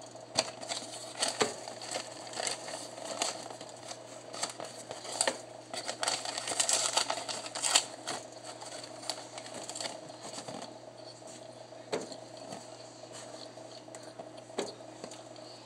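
A cardboard corn starch box being torn open by hand, its flaps and inner liner crinkling and crackling in a run of sharp clicks and tears, busiest about six to eight seconds in. A steady faint hum sits underneath.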